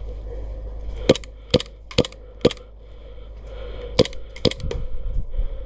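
Airsoft guns firing single shots: sharp cracks about half a second apart, four in a row, then three more after a short pause.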